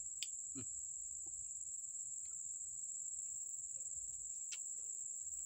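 Steady, high-pitched insect chorus, a continuous shrill trill like crickets, with a few faint clicks mixed in.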